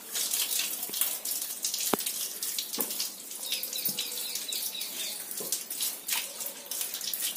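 Water running from a wall tap into a tiled sink while hands are washed under it, splashing. The flow starts suddenly as the tap is opened, with a few small knocks.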